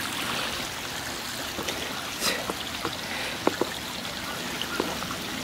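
Shallow creek water running and trickling steadily over flat rock, with a few short clicks scattered through it.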